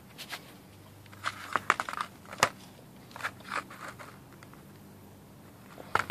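Handling noise: scattered short clicks and rustles in a few clusters, the sharpest click about two and a half seconds in, over a faint steady hum.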